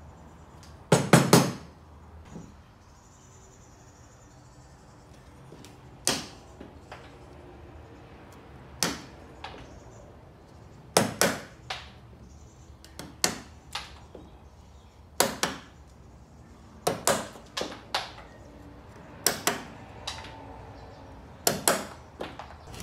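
Wooden mallet striking a chisel to chop out the waste between saw cuts in a wooden board's groove. Sharp knocks come in short clusters of two or three strikes, repeating every couple of seconds with short pauses between.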